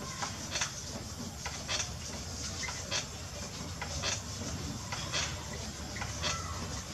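A potter's wheel running with a steady low hum while wet clay is worked on it, with short, sharp high clicks coming irregularly about once or twice a second.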